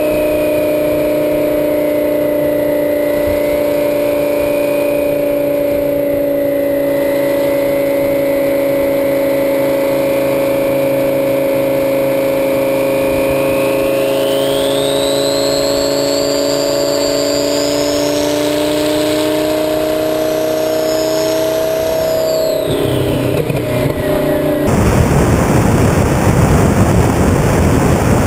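Twin-turbo Lamborghini Gallardo Superleggera's V10 running at a steady cruise, heard close to the exhaust, with a thin turbo whistle that climbs in pitch past the middle and then falls away. About four seconds before the end the engine gives way to heavy wind noise on the microphone.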